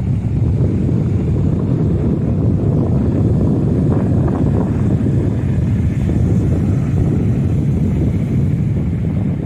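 Rough sea surf under strong wind, heard as a loud, steady low rumble of wind buffeting the microphone over the wash of the waves.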